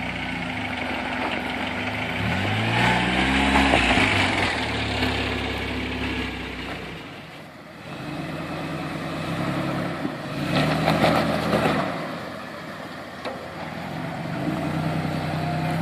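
Off-road vehicle engine running and revving: it climbs in pitch about three seconds in, eases off, then revs again around ten to twelve seconds in.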